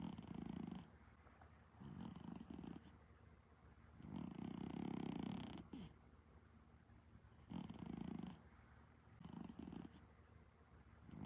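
Exotic Shorthair cat snoring in its sleep: rattling snores that rise and fall with its breathing. A louder snore comes about every three and a half to four seconds, one of them lasting nearly two seconds, with a shorter, softer snore between.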